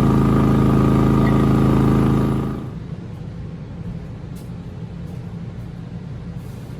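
WEN 3800-watt inverter generator running steadily at about half load in eco mode, an even engine hum. About two and a half seconds in, its sound drops to a much quieter, rougher low hum.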